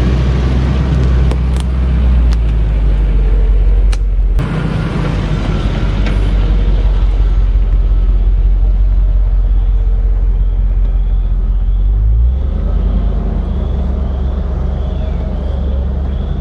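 Land Rover Discovery II's engine running steadily as it drives off-road, a low drone whose pitch shifts about four seconds in and again near twelve seconds, with a few sharp knocks in the first few seconds.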